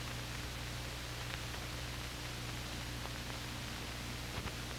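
Steady hiss and low electrical hum of an old film soundtrack, with a couple of faint clicks.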